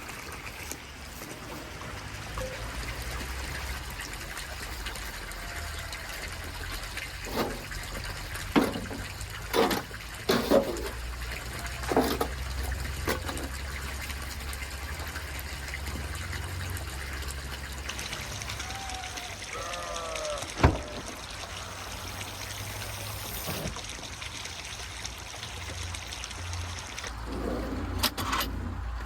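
Water trickling steadily, with a scatter of sharp knocks and clacks, the loudest single one about two-thirds of the way in, and a few short chirps just before it.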